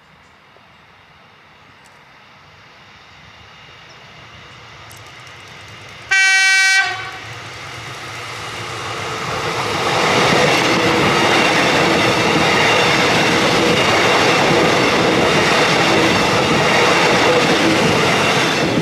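Metro Trains Melbourne X'Trapolis 100 electric multiple unit approaching and passing close by: its noise builds steadily, a short horn blast sounds about six seconds in, the loudest moment, and then the carriages rush past loudly and steadily until the end.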